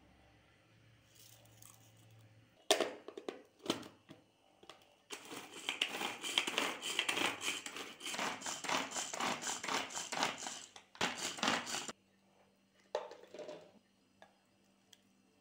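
A few knocks as the lid of a pull-cord vegetable chopper is fitted, then the chopper running in quick repeated pulls for about six seconds, its spinning blades chopping roasted tomatoes, onion and green chilli into a coarse paste.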